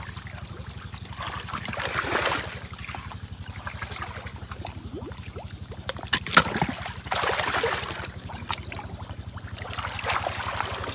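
Water splashing and sloshing in several bursts as hands and legs move through shallow water, groping into a bank hole for fish, over a steady low motor drone.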